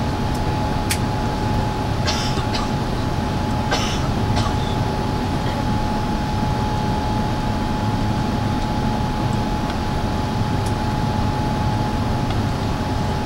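Airbus A380 engines at climb power after take-off, heard inside the cabin as a steady, even roar with a thin steady whine over it. A few light clicks or rattles come in the first five seconds.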